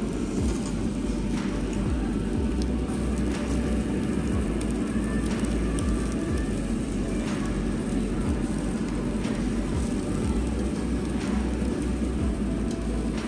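Lamb rib, king prawns, scallops and foie gras sizzling on a tabletop barbecue grill: a steady low rush with occasional pops.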